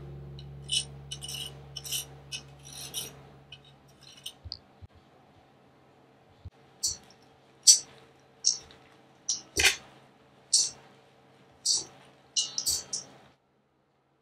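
A lemon rasped on a microplane zester in quick scraping strokes, then metal serving utensils clinking against a stainless steel mixing bowl as a salad is tossed: about ten sharp clinks.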